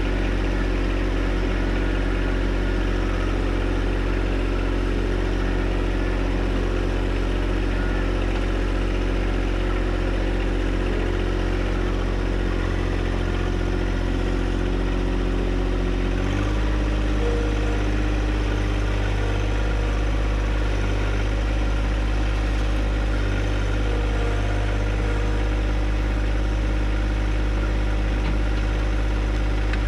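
John Deere 1025R compact tractor's three-cylinder diesel engine running steadily. Its note shifts once, about sixteen seconds in.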